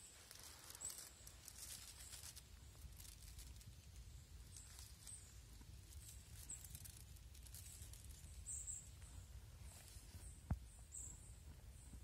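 Near silence: quiet forest ambience with a low rumble, a few faint high chirps, and one sharp click near the end.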